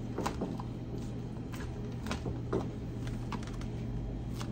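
A series of light, irregular clicks and taps, about one or two a second, over a low steady hum, typical of kitchen utensils or containers being handled.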